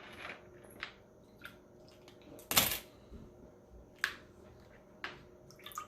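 Scattered light clicks and taps from objects being handled on a tabletop, with one louder, brief rustle about two and a half seconds in.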